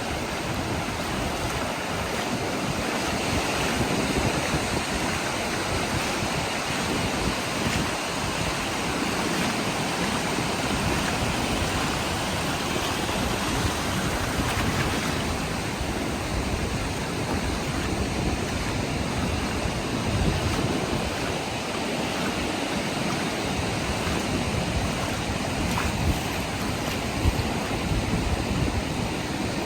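Ocean surf washing onto the beach in a steady rush of noise, with wind gusting on the microphone.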